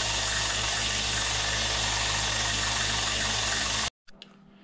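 Small bench belt sander grinding down the end of a rusty steel pipe: a steady grinding hiss over the motor's hum, cutting off suddenly about four seconds in.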